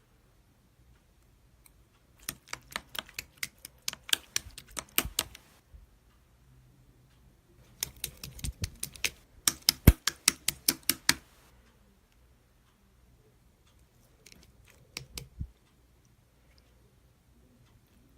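Typing on a keyboard in three bursts of rapid clicks, with pauses between.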